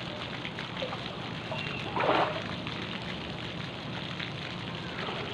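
Swimming-pool water lapping and sloshing around a swimmer, with faint distant voices and a brief louder noise about two seconds in.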